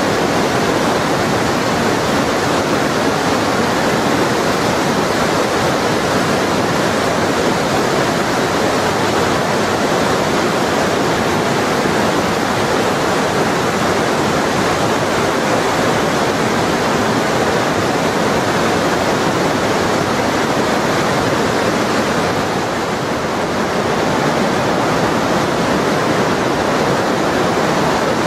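Glacier-fed Lütschine river rushing through a narrow rock gorge: a steady, loud roar of white water.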